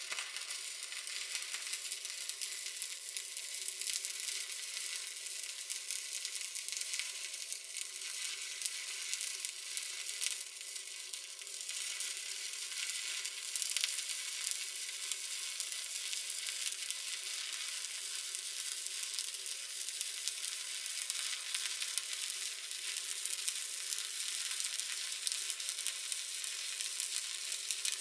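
Stick welding arc crackling and sizzling steadily as an electrode burns along a weld bead, a dense fast crackle without a break.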